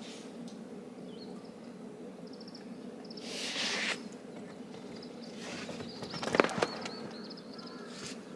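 Small birds chirping in short repeated high notes over a steady low hum. A brief hissy rush comes midway, and a cluster of sharp crackling clicks near the end is the loudest moment.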